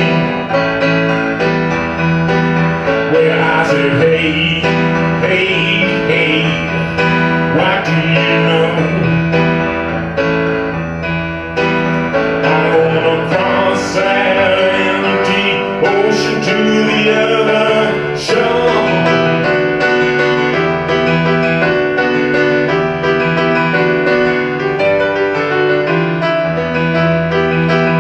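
Grand piano played live, with a man singing over it through roughly the first half; the rest is piano alone.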